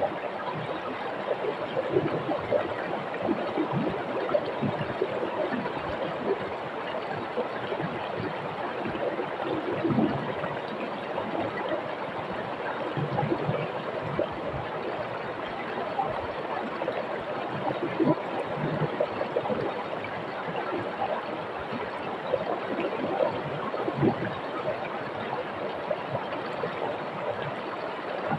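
A shallow river running over rocks, with a steady rush and many small gurgles and splashes.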